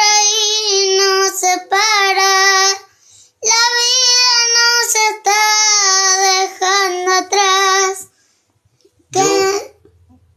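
A young boy singing a song, holding long notes with a wavering pitch, in three phrases with short breaks for breath about three seconds in and near the end.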